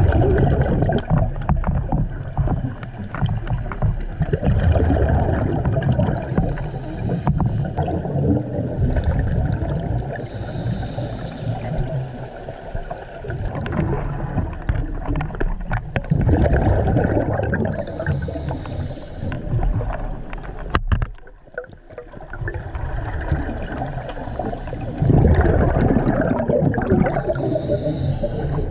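Scuba diver's breathing through a regulator: a hissing in-breath about five times, several seconds apart, with rough bubbling rumble from exhaled bubbles in between.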